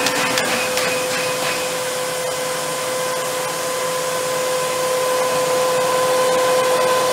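Steady whirring hum of a UV inkjet printing station running over its vacuum table, with a fixed mid-pitched tone over an airy hiss. A few light clicks sound in the first second and a half.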